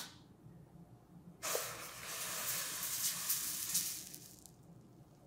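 Crepe batter sizzling against the hot plate of an electric dip-style crepe maker, starting suddenly about a second and a half in and fading away after about three seconds.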